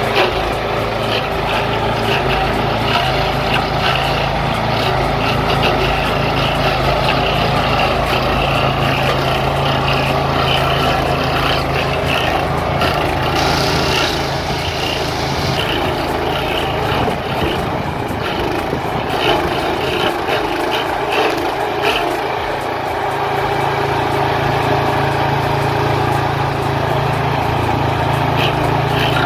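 Walk-behind stump grinder powered by a DuroMax gasoline engine, running hard while its cutter wheel grinds into a tree stump with a steady chatter of chips. For several seconds in the middle the engine's low note fades and changes, then it steadies again.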